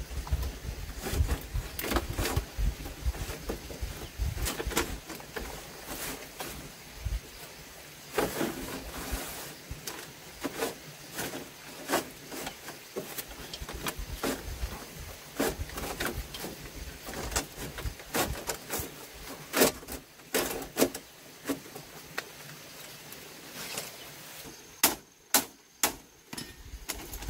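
Irregular knocks and clicks, sometimes several close together, with a run of sharper clicks near the end.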